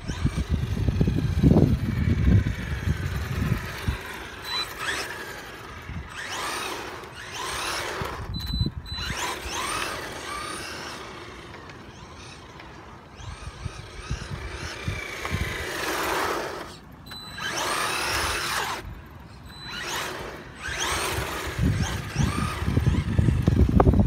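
Electric motor and drivetrain of a 1:10 Maverick Strada RX rally car whining, sweeping up and down in pitch again and again as the car speeds up and slows down on its runs. A low rumbling is heard near the start and again at the end.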